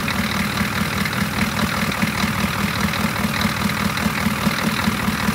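1990 Chevy pickup's 6.2-litre Detroit diesel V8 idling with a steady, even beat, running great after firing right up on new batteries.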